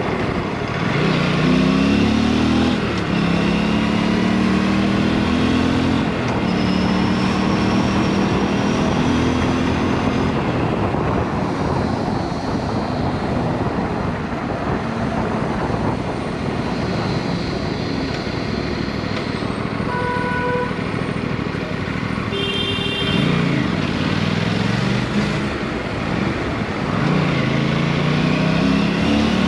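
Aprilia superbike engine, exhaust running without its dB killer, pulling up through the revs a couple of times and holding steady between, with wind noise on the microphone. A vehicle horn sounds briefly a little after the middle.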